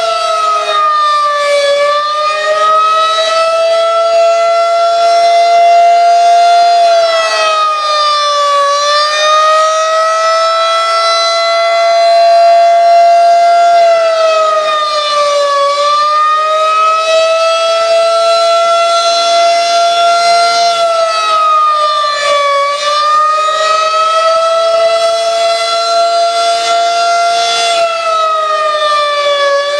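Federal Signal 2001-SRN rotating electromechanical civil defense siren sounding the attack signal: a loud, steady tone whose pitch dips briefly and recovers about every seven seconds.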